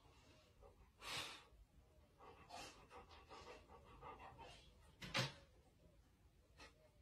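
Dog panting softly in short, irregular breaths, with one louder, sharper sound about five seconds in.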